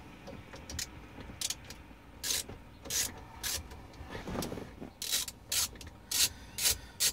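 Short scraping and rubbing strokes from hand work with tools and parts: a few scattered strokes, then a regular run of about two a second near the end.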